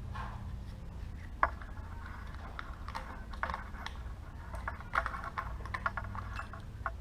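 Scattered light clicks and knocks of small metal parts handled as a motorcycle carburetor is fitted back in, slide first. A sharper knock comes about a second and a half in and another near five seconds, over a steady low hum.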